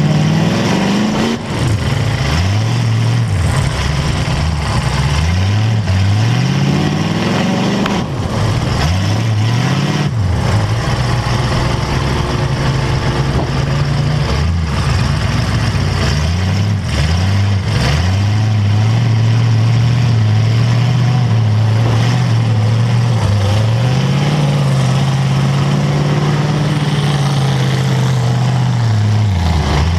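Demolition derby car's engine heard from inside the car, revving up and dropping back again and again in short bursts, with a few sharp knocks from hits along the way.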